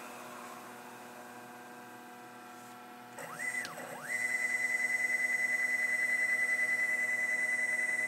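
Small hobby CNC machine's motors whining: a faint hum at first, then about three seconds in a pitch that sweeps up and down, settling into a steady high whine with a regular pulsing.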